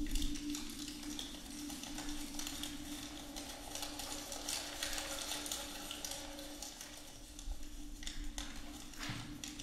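Sheets of paper being crumpled and rustled by hand: a dense crackling rustle with sharper crinkles scattered through it, over a steady low hum.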